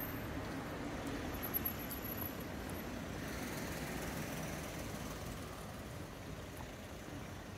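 City street ambience with steady road traffic noise from passing cars, and two brief clicks about a second and a half in.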